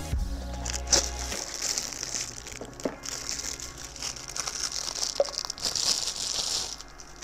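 Clear plastic wrapping crinkling and rustling as it is handled and pulled off a small item, with many small crackles; it stops shortly before the end.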